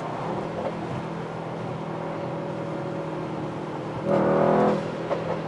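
Mercedes-AMG GT 63 S's 4.0-litre V8 running at motorway speed, heard from inside the cabin as a steady drone with road noise. About four seconds in the engine briefly swells louder for under a second.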